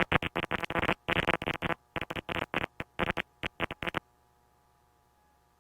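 Aircraft radio in the headsets picking up a weak, broken transmission that breaks the squelch, chopping in and out many times a second, then cut off abruptly about four seconds in.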